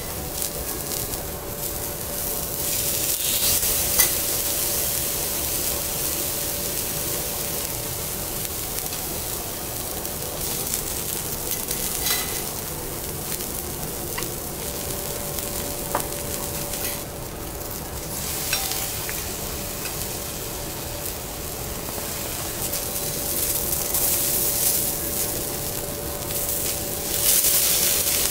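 Wagyu beef steaks sizzling on a teppanyaki iron griddle, the hiss swelling and fading. A few sharp clicks of metal spatulas against the griddle and a steady hum run underneath.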